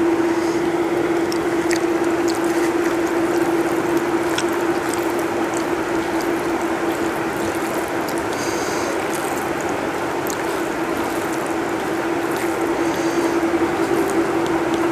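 A steady machine hum holding one constant tone, with a rushing noise under it. Faint scattered clicks of fingers mixing rice on a steel plate come through over it.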